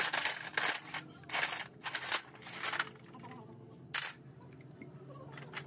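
Short metallic clicks and rattles of small valve-gear parts (springs, retainers, keepers) being worked loose and handled on a tractor's cylinder head: several in the first three seconds and one sharp click about four seconds in.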